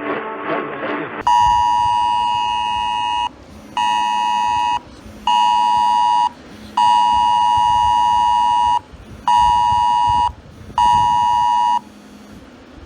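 Emergency Alert System attention signal: a steady two-tone electronic alert sounding in six bursts of one to two seconds with short gaps between them, starting about a second in after a little music.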